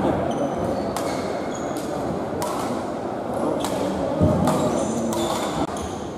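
Badminton rally in a large indoor hall: sharp racket strikes on the shuttlecock about once a second, with short high squeaks of shoes on the court surface. The sound drops suddenly near the end.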